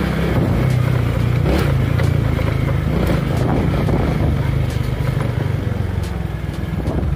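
Honda Biz step-through motorcycle's small single-cylinder four-stroke engine running as it rides along, a steady low hum that eases off slightly near the end.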